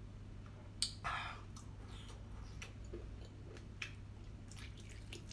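Mouth sounds of biting into and chewing a geoduck's siphon: a string of short wet clicks and smacks, the sharpest about a second in.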